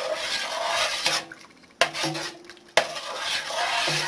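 A metal spoon stirring broth in a stainless steel pressure cooker pot, scraping along the inside. Two sharp clinks of metal on the pot come about a second apart near the middle, the first leaving a brief ring.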